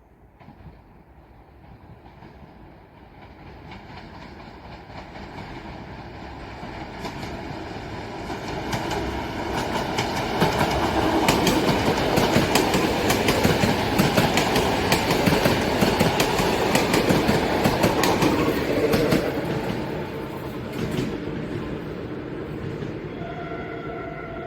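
A BDZ class 32 electric multiple unit passing by. It grows from faint to loud and then eases away, with the wheels clacking rapidly over rail joints while it is closest. A steady tone comes in near the end.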